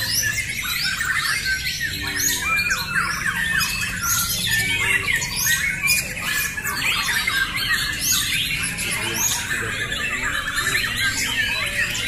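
Many caged white-rumped shamas (murai batu) singing against each other in a song contest: a dense, unbroken tangle of fast, overlapping whistled phrases.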